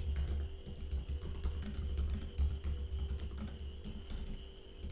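Typing on a computer keyboard: a quick, irregular run of keystrokes, with faint background music.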